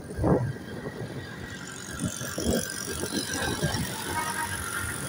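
A moving motorcycle heard from on board: wind buffets the microphone in irregular low gusts over road and engine noise, with a hiss rising in the upper range from about two seconds in.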